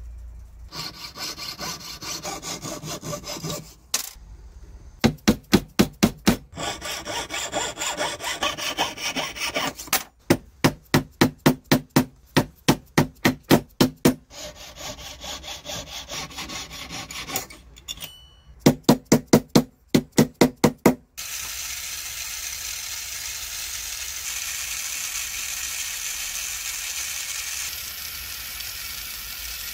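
Filing rasps on a small silver ring band, broken by three quick runs of taps from a white-faced mallet on the ring over a bench block; the taps are the loudest sounds. In the last third a jeweller's gas torch flame hisses steadily as it heats the ring for soldering its seam.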